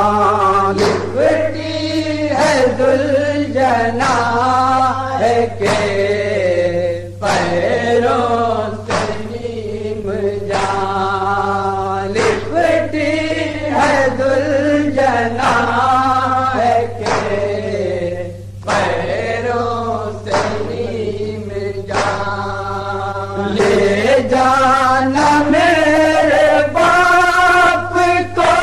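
Nauha, a Shia lament, chanted by voices in a slow, drawn-out melody, over a steady low hum.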